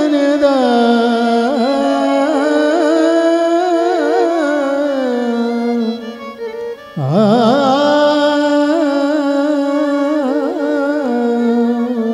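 A man singing Odissi classical vocal music in long, ornamented phrases with a wavering pitch. There are two held phrases with a short break about six seconds in.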